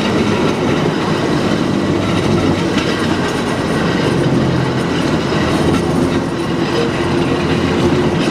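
1915 St. Louis Car Company streetcar rolling along its track, heard from on board: a steady rumble of steel wheels on the rails with a steady low hum.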